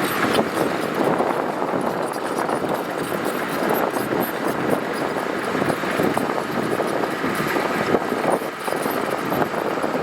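Heavy earthmoving machinery working gravel: a steady engine drone mixed with a dense, continuous crackling clatter.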